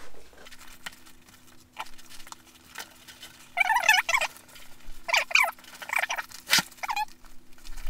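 Nylon webbing and a plastic G-hook on a plate carrier's cummerbund squeaking as they are forced apart by hand. Several short warbling squeaks come from about halfway through, with a sharp click near the end.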